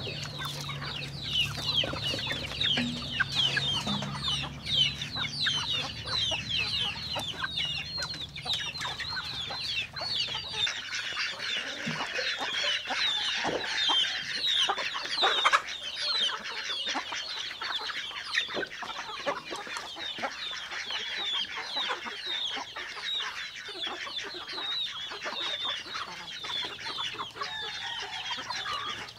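A flock of chickens calling continuously, many short high calls overlapping one another. A low hum underneath stops about ten seconds in.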